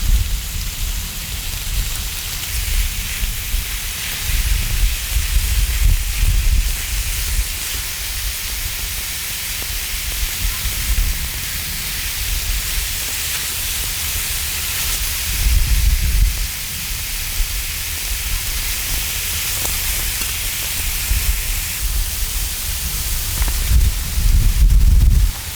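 Beef tenderloin and mushrooms sizzling on a cast-iron cauldron-lid grill: a steady, loud hiss, with bursts of low rumble now and then.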